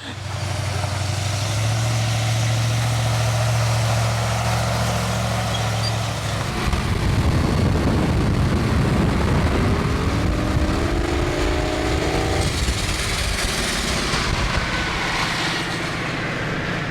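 A car driving on the road: a steady engine drone for about six seconds, then a rougher rumble of engine and road noise, with an engine note rising between about ten and twelve seconds.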